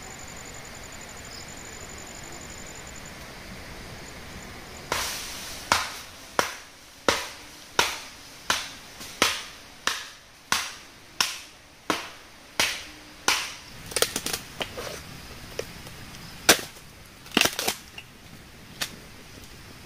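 Sharp, evenly spaced strikes of a blade chopping wood, about three every two seconds, starting about five seconds in; the last few seconds bring a more irregular scatter of blows.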